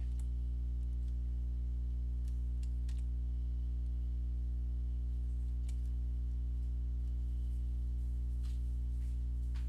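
A steady low electrical hum with evenly spaced overtones, with a handful of faint computer mouse and keyboard clicks scattered through it.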